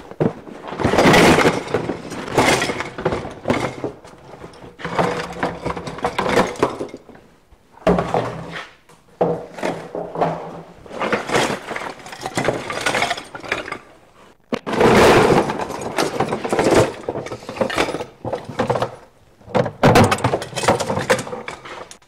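Steel foothold traps with their chains and wooden trap stakes clattering and clinking as they are pulled from containers and tipped out onto a pile, in repeated bursts with sharp knocks.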